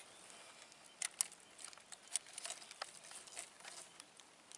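Faint, scattered small clicks and taps from a fish lip grip being handled, with a sharper click about a second in.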